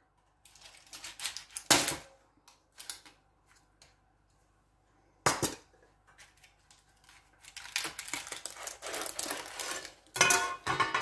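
A metal cake tin being handled to free a baked sponge layer. There are a few sharp metallic clicks and knocks, and a stretch of scraping and rattling near the end.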